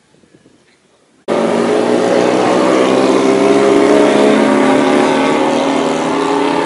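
Motorcycle engines running loud and steady as riders go by, starting abruptly about a second in.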